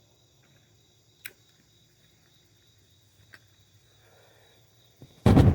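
Crickets chirring steadily, with a sharp click about a second in and a fainter one later. A sudden loud noise breaks in near the end.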